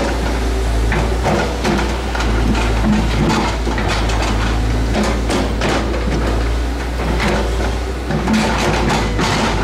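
Dump truck's diesel engine running steadily with the bed raised while a load of dirt and rocks slides out. Irregular knocks and clatter of clods and stones tumbling from the bed throughout.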